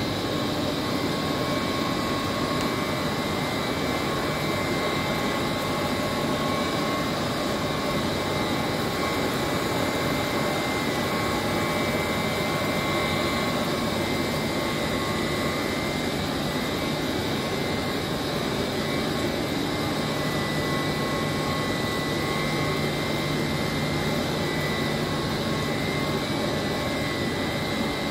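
Steady machinery noise of a chiller plant room in operation: a Trane screw chiller's compressor and the chilled-water pumps running together, a constant low hum under several steady high whining tones.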